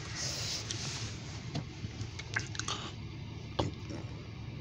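Steady low hum of a vehicle heard from inside its cabin, with a few faint clicks and rustles scattered through it.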